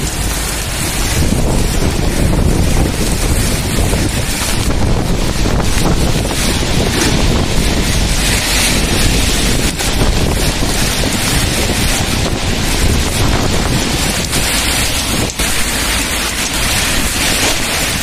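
Heavy wind-driven rain in a storm, with strong gusts hitting the microphone as a loud, steady low rumble under the hiss of the downpour.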